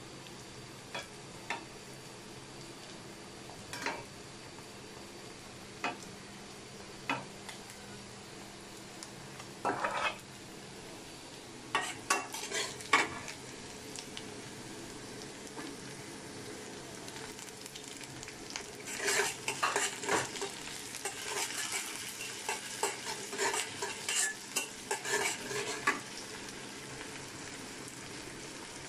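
Chopped onion and green chillies frying in oil in a metal karahi, with a metal spatula scraping and clinking against the pan. There are a few scattered knocks at first, then a dense run of stirring scrapes about two-thirds of the way through.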